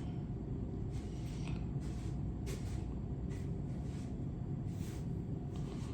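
Steady low background hum with a few faint, soft handling noises scattered through it.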